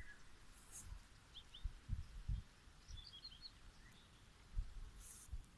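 Quiet woodland ambience with a few faint, short bird chirps, about one and a half and three seconds in, and several low thumps.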